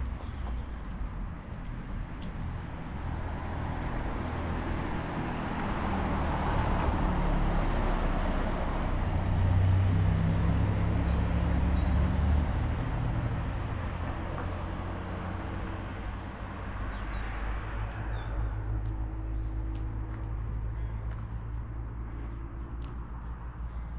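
A car passing on the road: its engine and tyre noise swells to a peak about ten seconds in, then fades. A steady low hum is left behind.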